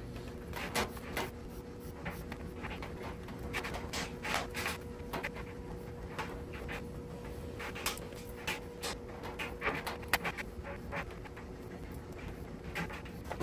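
Scratchy crinkling and rubbing of a Cat6 cable's thin plastic-insulated wires as fingers untwist and straighten the pairs, many short ticks. Behind it is the steady hum of a clothes dryer running.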